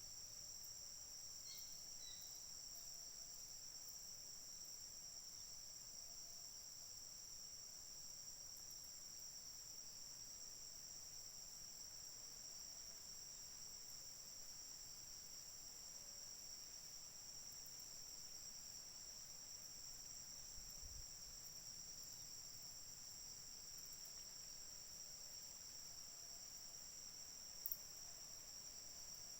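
Faint, steady, high-pitched insect chorus of crickets or similar insects, unbroken throughout, with a single sharp click near the end.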